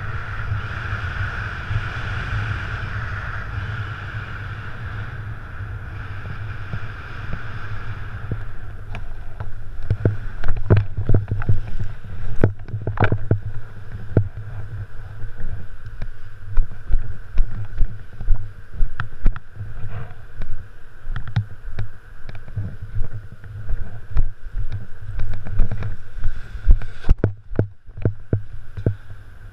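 Wind rushing over the microphone of a paraglider pilot's camera in flight. It is a steady rush at first, turning into irregular, gusty buffeting about eight seconds in, and drops away shortly before the end once he is down on the sand.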